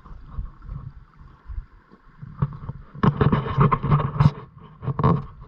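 Kayak paddling: paddle blades dipping and splashing with water sloshing around the hull, growing louder and more irregular about halfway through.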